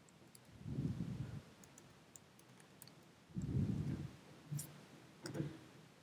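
Faint, scattered clicks of typing on a computer keyboard and clicking a mouse. Two soft low thuds come about a second in and a little past midway.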